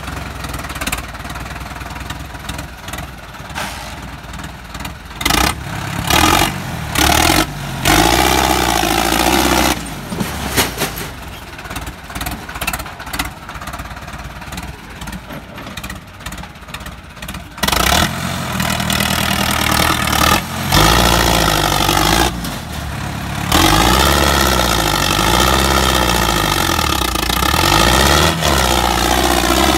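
Diesel tractor engine through a tall vertical exhaust stack, revved hard again and again while the tractor manoeuvres. The revs swell up and fall back in pitch, with quieter steady running between them, longest and loudest in the second half.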